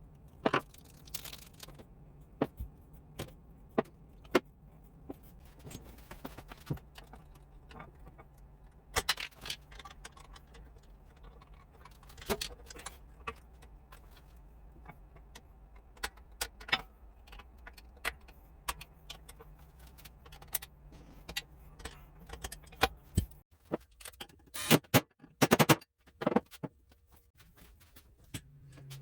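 Small metal parts and hand tools clinking and tapping in irregular, scattered clicks over a faint steady low hum. The hum stops about three-quarters of the way through, followed by a handful of louder knocks.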